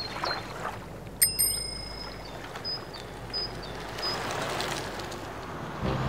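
A bicycle bell rings once about a second in, its high tones fading over about a second. Behind it are a steady outdoor hiss and short, high bird chirps.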